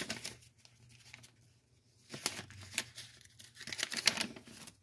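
Paper crinkling and rustling as it is handled, in several short spells with quiet gaps between.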